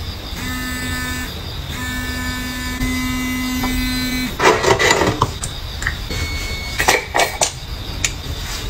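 A handheld electric facial device buzzing at one steady pitch in on-off stretches, then stopping about four seconds in. After it come a short rush of noise and a few sharp clicks, as a foam pump bottle is pressed.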